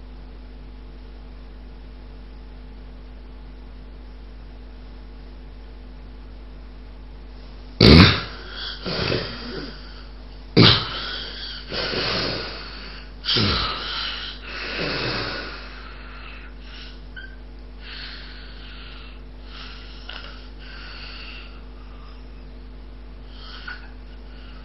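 A sleeping person with no breath sounds for about eight seconds, then a sudden loud snort and about six heavy snoring, gasping breaths that fade to quieter breathing. This is the pattern of an obstructive sleep apnea pause ending with a loud snort as breathing resumes.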